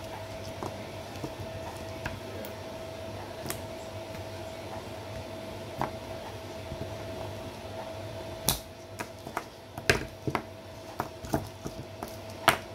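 Plastic micro servos and scissors handled on a tabletop: a few light clicks, then a run of sharp clicks and knocks in the second half, the loudest near the end. A steady faint high hum runs underneath.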